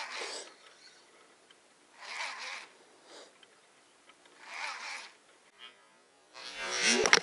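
Daiwa Tatula baitcasting reel cranked in three short whirring bursts about two and a half seconds apart: a stop-and-go jig retrieve. Near the end comes a louder, mixed burst of sound.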